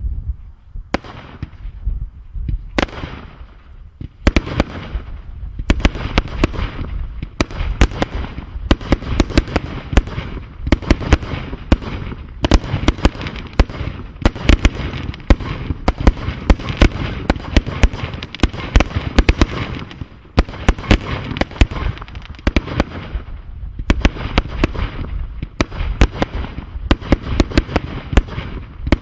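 A 100-shot air-bomb-style firework cake firing: a few separate loud bangs in the first few seconds, then a rapid, near-continuous barrage of shots and bursts.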